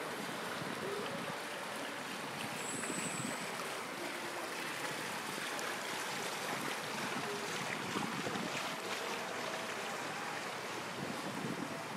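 Water flowing steadily along a shallow channel of a park water feature. A brief high whistle sounds about three seconds in.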